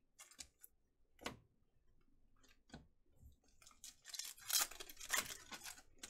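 Trading cards and crinkly plastic being handled by hand: a few light clicks and taps, then a couple of seconds of dense crinkling and rustling about four seconds in.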